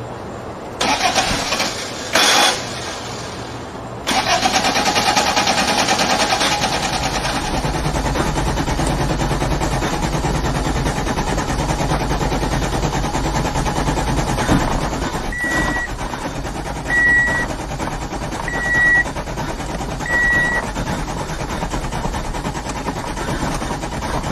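A car's starter motor cranking the engine: a couple of short tries, then a long continuous crank from about four seconds in that does not catch. Four short dashboard warning beeps sound partway through.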